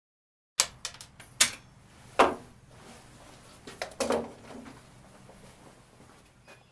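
A run of sharp metallic clicks and clatters, several in the first two seconds and a softer cluster about four seconds in, over a faint steady hum: handling noise at the bench of a bolt-action .22 rimfire rifle, with no shot fired.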